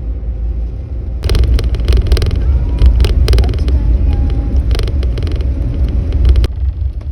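Car cabin rumble from a moving car, with irregular clicking and rattling from about a second in until shortly before the end.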